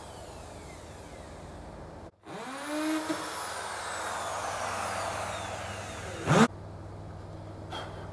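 Corded electric drill spinning up with a rising whine and running for about four seconds, with a short, louder burst just before it stops.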